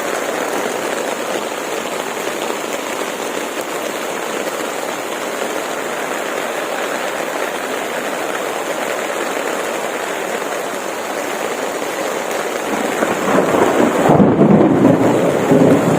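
Heavy storm rain falling steadily. About thirteen seconds in, a louder, deeper rumbling rush comes in over it.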